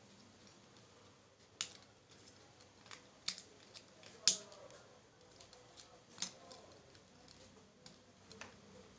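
Stiff thin plastic petals being handled and pressed together by hand: scattered sharp clicks and crackles of plastic, about half a dozen, the loudest a little past four seconds in.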